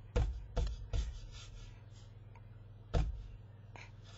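Four sharp clicks or knocks close to the microphone, three in the first second and one about three seconds in, over a steady low hum.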